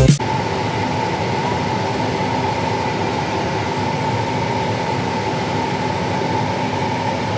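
John Deere S780 combine running steadily while harvesting corn, heard from inside the cab: an even mechanical drone with a steady high tone.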